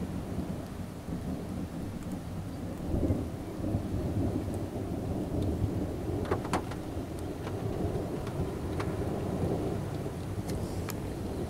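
Thunder rumbling continuously in a thunderstorm with rain falling. A few sharp ticks of raindrops hitting close by, most of them in the second half.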